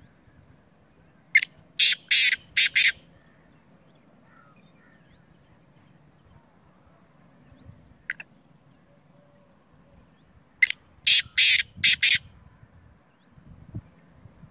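Black francolin calling twice, about nine seconds apart: each call a harsh, grating phrase of about five quick notes, the third one longest.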